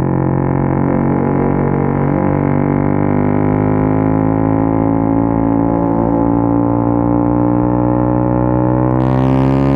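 Motorcycle engine running at steady high revs: one unbroken droning note whose pitch creeps up over the last few seconds, with a short burst of hiss near the end.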